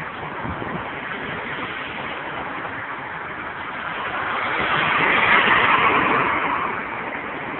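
Road traffic going past: a car's engine and tyre noise swells about four seconds in, then fades again, with no horn sounded.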